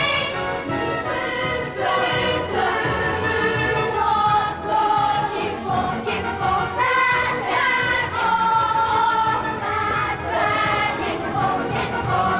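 A chorus of boys singing a stage-musical number with instrumental accompaniment, in long held notes.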